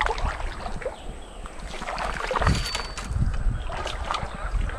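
Wind rumbling on the microphone, with several short, light clicks and rustles scattered through it.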